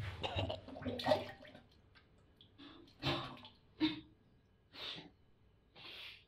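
A woman retching and gagging over a toilet bowl, with wet, gurgling throat sounds, then several heavy breaths about a second apart.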